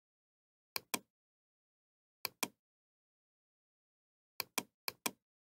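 Computer mouse clicked four times, each click a sharp double tick of the button being pressed and released: about a second in, about two seconds later, and twice in quick succession near the end.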